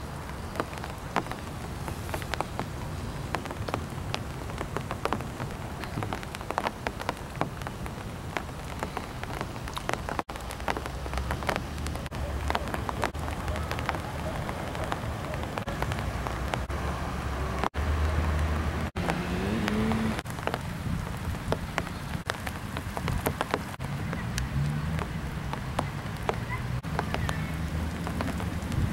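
Steady rain of a summer thunderstorm, with many sharp drops pattering close to the microphone. A low rumble swells through the middle, and the sound drops out for an instant a few times.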